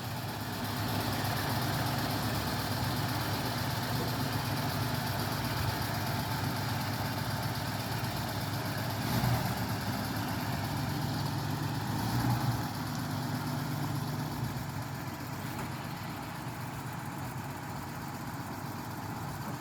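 1949 DeSoto Deluxe's flathead straight-six engine running steadily as the car is driven, with brief rises in engine sound about 9 and 12 seconds in.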